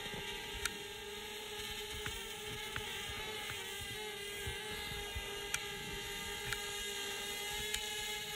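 Whine of a DJI Spark quadcopter's propellers and motors in steady flight, a high droning hum of several tones that wavers a little in pitch. Sharp clicks come through every second or so.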